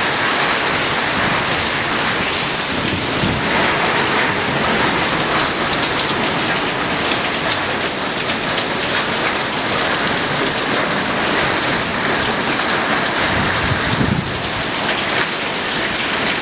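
Steady downpour of heavy cyclone rain from Cyclone Hudhud.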